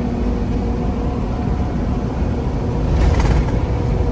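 Semi-truck's diesel engine and road noise heard inside the cab, a steady low drone while the truck climbs a long mountain grade. A brief hiss comes about three seconds in.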